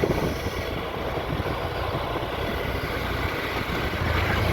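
Motorcycle riding noise: the engine running under a steady rush of wind and road noise.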